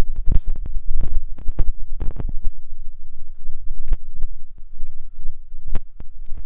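Freight train's open-top hopper cars rolling past: a heavy low rumble broken by irregular clanks and knocks from the wheels and couplers.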